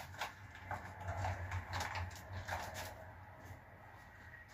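A run of light clicks and rustling handling noises, busiest in the first three seconds, over a steady low hum.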